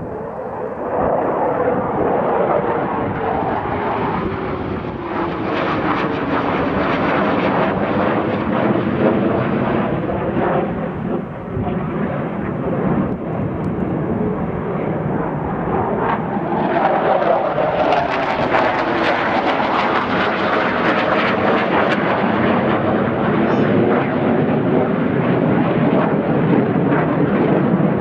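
F-15 Eagle fighter jet flying past with its twin turbofan engines running, a steady loud jet noise with sweeping, wavering tones moving through it. The noise grows brighter and hissier from about two-thirds of the way in.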